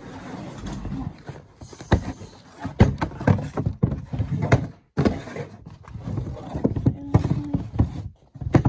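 Black Converse high-top sneakers and their cardboard shoebox handled on a tabletop: a run of irregular knocks and taps as the shoes and box are moved and set down, with rustling as the paper stuffing is pulled out of a shoe.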